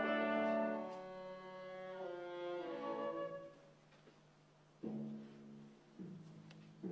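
Orchestra playing: loud held chords that fade away over the first few seconds, a hush, then short sudden chords with sharp attacks about five seconds in, again a second later and near the end.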